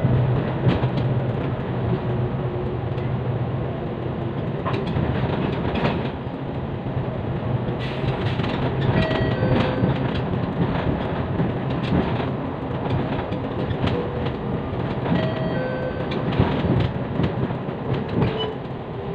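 Cabin noise of a moving bus: a steady engine and road rumble, with a low drone over the first few seconds, and frequent rattling and clicking from the body and fittings.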